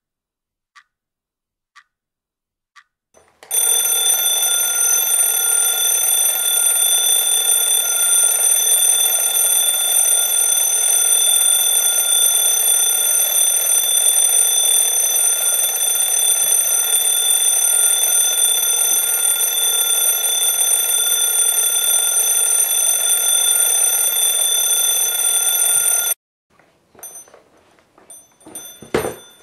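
Analog alarm clock ticking about once a second, then ringing loudly and steadily for over twenty seconds before cutting off suddenly. Rustling and a heavy thump follow near the end.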